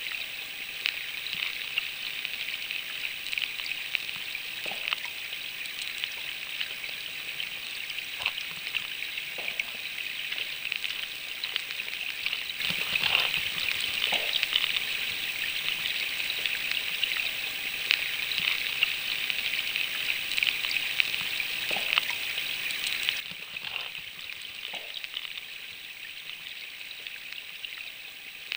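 Rushing river water heard underwater: a steady crackling fizz with scattered sharp ticks. It grows louder about halfway through and drops suddenly near the end.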